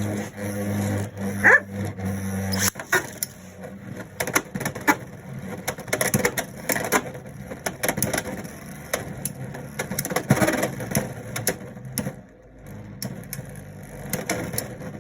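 Beyblade X spinning tops, one riding a resin 3D-printed Bound Spike bit, whirring and grinding in a plastic stadium, then clashing in a long series of sharp clicks and knocks. The hits die down a little after halfway.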